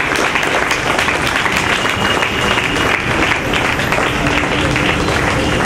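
Audience applauding: many people clapping steadily at once.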